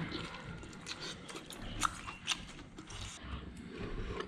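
Eating at the table: a few sharp clicks of utensils against dishes, with faint chewing.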